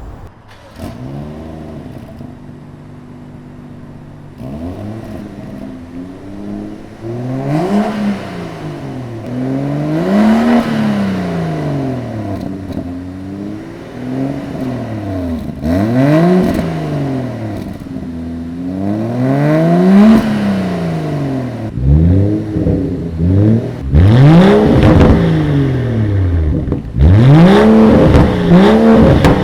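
2018 BMW X4 M40i's turbocharged 3.0-litre inline-six exhaust, revved up and down about a dozen times, each rev rising and falling in pitch. The revs get louder and come in quicker blips over the last few seconds.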